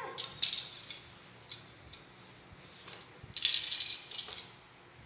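Loose plastic parts of a Takara Tomy Zoids Wild Liger model kit rattling and clattering against each other and the tile floor as a hand rummages through them. The noise comes in short bursts, the longest a little over three seconds in.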